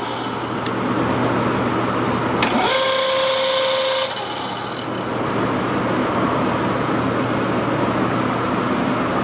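Stanko engine lathe running with a steady hum. About two and a half seconds in, a motor whine rises in pitch, holds one steady high tone for about a second and a half, then cuts off, as the carriage's feed/traverse lever is worked.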